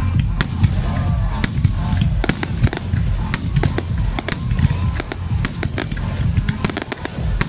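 Fireworks display going off: many sharp bangs and crackles at an irregular pace over a deep, continuous rumble.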